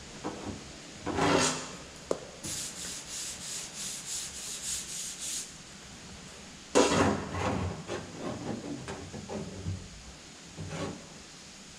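Hand sanding on the sheet metal of a car door, a run of quick back-and-forth strokes, about four a second, for about three seconds midway, among scattered scraping and handling sounds.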